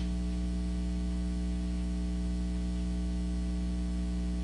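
Steady electrical mains hum with a faint hiss, picked up through the microphone and sound system while no one speaks.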